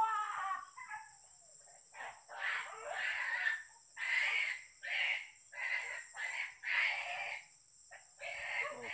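A pitched cry that falls away at the start, then a run of short, harsh animal calls, about one or two a second, from about two seconds in.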